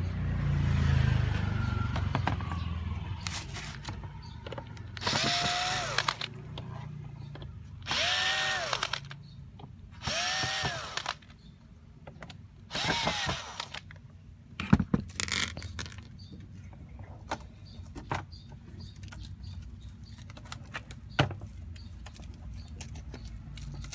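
Power drill run in four short bursts, each whine rising in pitch as it spins up and falling as it stops, with scattered clicks and knocks of handling in between.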